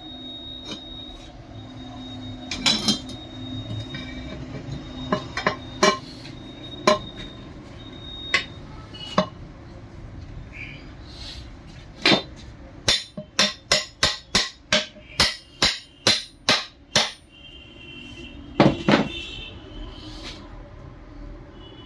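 Hammer blows on pump parts while a Wilden air-operated diaphragm pump is being reassembled. There are scattered single knocks at first, then a quick run of about a dozen strikes at roughly two a second, and a loud double knock near the end.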